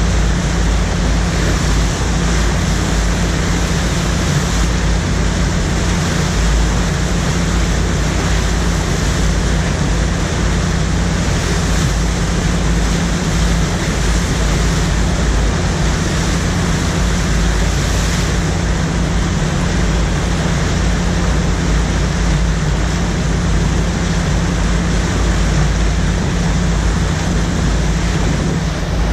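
Loud, steady rush of churning whitewater from an artificial standing surf wave pouring through its concrete channel, with a constant low rumble underneath.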